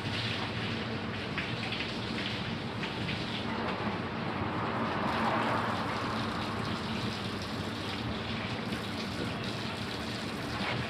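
Water running and splashing steadily, as when a hose washes sandstorm dust off a house, swelling louder about four seconds in and easing off again.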